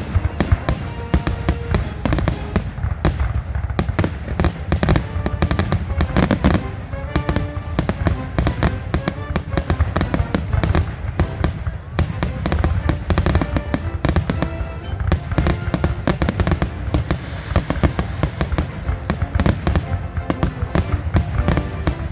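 Fireworks going off in a dense run of crackles and bangs, several a second, with background music playing over them.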